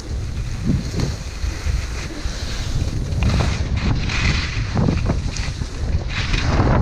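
Wind buffeting a skier's body-mounted action-camera microphone during a downhill run, a low rumble, with skis hissing and scraping over snow. The scraping grows stronger and choppier about halfway through.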